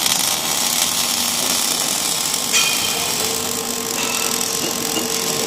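Robotic arc welding: a steady crackling hiss of the welding arc, with a faint steady hum joining about three seconds in.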